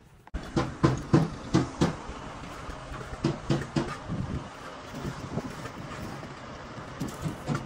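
A run of irregular knocks and clanks, several a second at first and then lighter and sparser, over a steady background of workshop noise.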